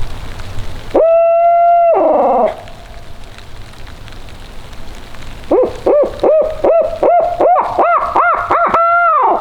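Barred owl hoot imitated close by, an owl locator call used to make gobblers shock-gobble: one long hoot that drops in pitch at its end, then, about halfway through, a quick run of short rising-and-falling hoots.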